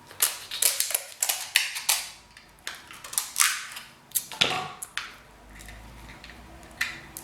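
King crab leg shell cracking and snapping as it is broken open, a quick irregular series of sharp crunches and clicks.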